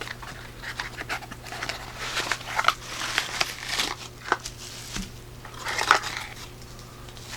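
Cardboard flashlight box being opened and its packaging handled: irregular rustling, crinkling and scraping swishes with a few small knocks.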